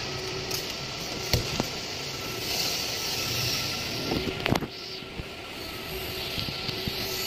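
Steady mechanical background noise of a workshop, with a stretch of hiss a few seconds in and a few sharp knocks.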